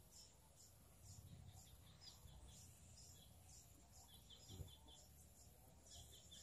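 Near silence with faint small-bird chirps repeating in the background, including quick runs of short high pips in the second half. A brief soft bump about two-thirds of the way in.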